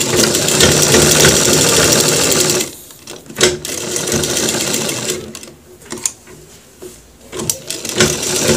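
Sewing machine stitching a seam in bursts: a run of about two and a half seconds, a brief stop, a shorter run, a quieter pause while the fabric is repositioned, then running again near the end.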